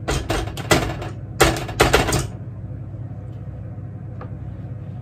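Quick knocks and scrapes as butter is tapped and scraped out of a small plastic bowl into a saucepan of caramel sauce, a cluster of sharp clicks over about two seconds, then only a steady low hum.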